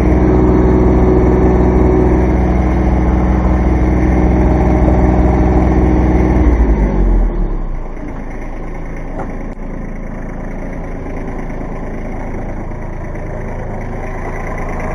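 Kubota B2320 compact tractor's three-cylinder diesel running steadily at working throttle, then winding down about halfway through to a lower, quieter idle.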